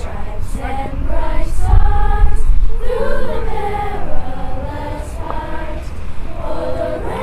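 School choir singing, the voices holding long notes that slide between pitches.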